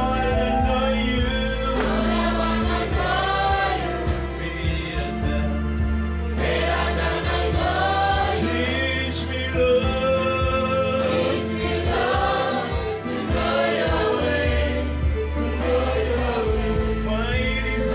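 Church choir singing a gospel song in unison over electronic keyboard backing with a steady low bass.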